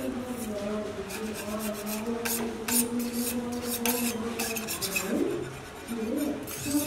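Metal scraper rasping and clicking against steel cookware in a run of short, irregular strokes, over a steady low hum.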